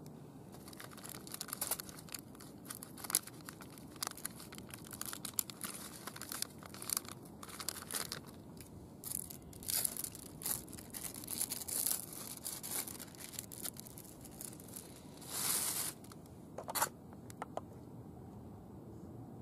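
Irregular crinkling, rustling and tearing noises in short bursts, with one longer rasp near the end, like packaging or wrap being handled and torn.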